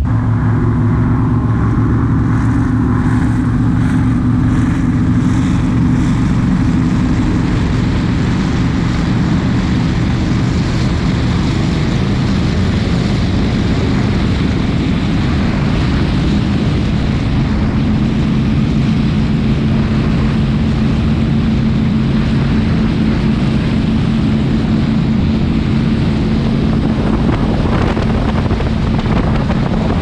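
The Fountain 47 powerboat's three 1350-hp engines run steadily at high speed in a deep, even drone. Wind and water rush over the microphone.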